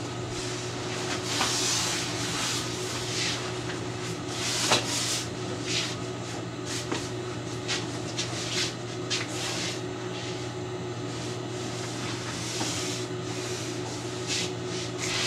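Blackout-lining drapery fabric rustling and swishing as it is handled and folded on a work table, with scattered light clicks and knocks, the sharpest a little under five seconds in. A steady low hum runs underneath.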